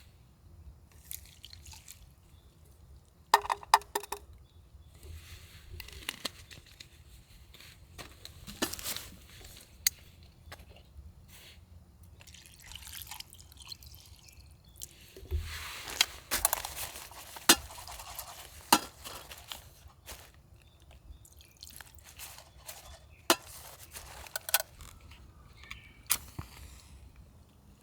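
Scattered clinks and taps of cookware and utensils being handled, with a longer spell of noise from about twelve to twenty seconds in.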